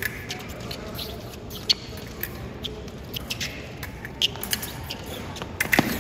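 Foil fencing bout: scattered sharp clicks and taps from footwork on the piste and blade contact over a steady hall background, with a quick cluster of louder clicks near the end as the two fencers close in.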